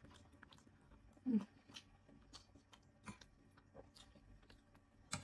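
Close-up eating sounds: a person chewing a spoonful of rice, with scattered small wet mouth clicks and smacks. There is a brief hum of voice about a second in and a sharper click near the end.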